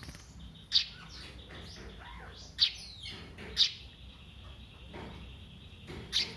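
Sparrow (burung gereja, the Eurasian tree sparrow) giving short, sharp chirps, about four loud ones at uneven intervals with fainter calls between them.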